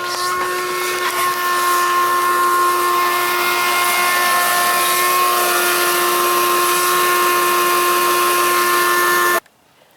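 Outdoor air-conditioning condenser unit running: a steady whine of several tones over a rushing hiss of air, cut off suddenly near the end.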